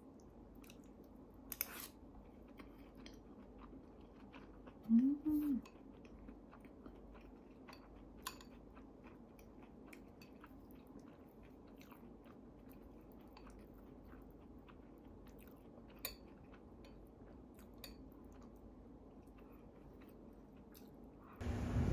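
Quiet eating sounds: chewing, with soft clicks of chopsticks and a metal spoon against a ceramic bowl. A short low hum rises and falls about five seconds in. Near the end the sound cuts to wind on the microphone.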